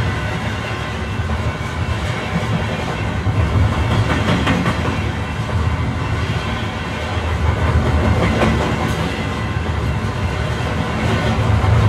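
A train running along the tracks: a steady rumble with a few sharper knocks, swelling around four and eight seconds in.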